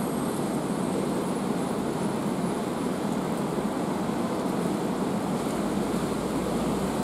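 Steady rain falling in a city, an even, dense hiss.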